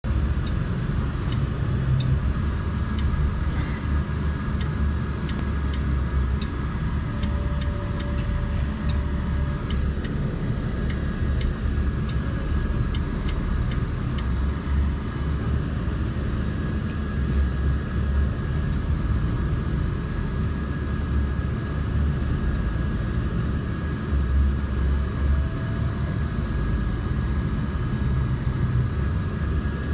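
Car driving along a dirt road: a steady low rumble of engine and tyres, with scattered light clicks and rattles.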